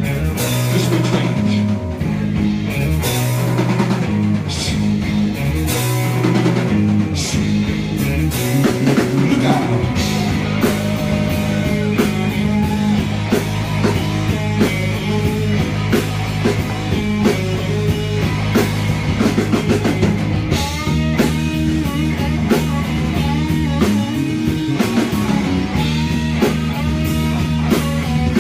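Live rock band playing electric guitars and a drum kit, with sustained low notes under frequent cymbal and drum hits.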